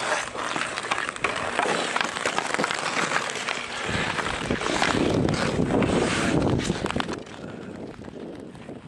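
Ice hockey skates scraping and hockey sticks clacking on an outdoor ice rink, with many short sharp knocks. A louder low rumble covers the microphone for a few seconds in the middle.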